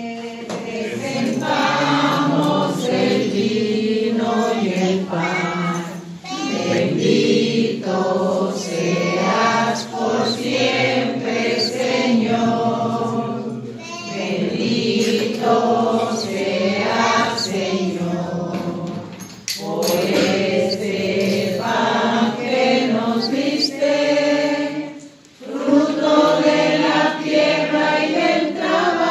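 Church choir singing an offertory hymn at Mass during the presentation of the gifts, in long phrases with brief breaks between them.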